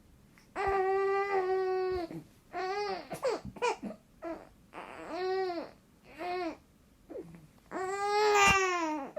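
A baby vocalizing in a string of about eight short, pitched, wavering calls with brief gaps between them. The longest, about a second and a half, comes near the start, and the loudest comes near the end.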